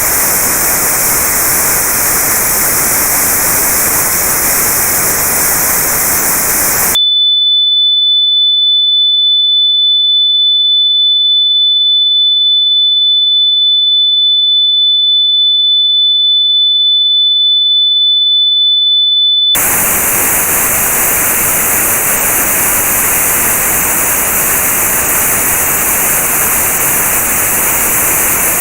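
Notched white noise for tinnitus sound therapy: a loud hiss with one band of high pitches cut out. About seven seconds in it gives way abruptly to a single steady high pure test tone, which holds for about twelve seconds. The tone then cuts back to notched white noise, its gap a little higher than before.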